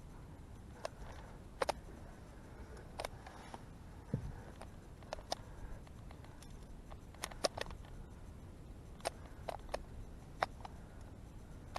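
Faint, irregular sharp clicks and ticks, about a dozen, spaced unevenly over a quiet background.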